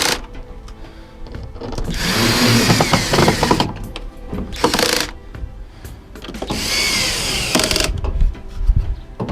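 Power drill-driver running in three short bursts, driving screws back into a washing machine's sheet-metal cabinet to hold the drum support. The motor's pitch rises and falls within each run, with clicks and rattles in between.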